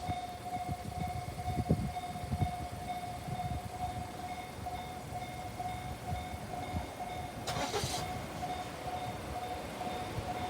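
Japanese level-crossing warning bell starting up and ringing in a rapid, evenly repeating ding-ding, the signal that a train is approaching. Low wind rumble underneath, with a brief whoosh about seven and a half seconds in.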